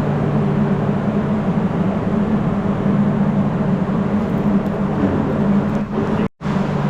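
A steady mechanical drone with a constant low hum, cut by a brief dropout about six seconds in.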